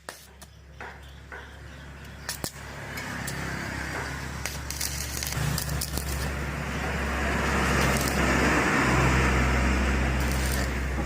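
Electric arc welding: the arc crackles and sizzles over a steady electrical hum, growing louder over the first several seconds, with a few sharp clicks near the start.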